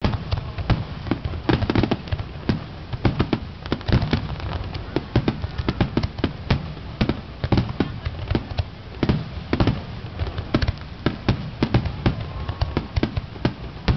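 Aerial firework shells bursting in quick succession: an irregular string of sharp bangs and deeper booms, several a second, without a break.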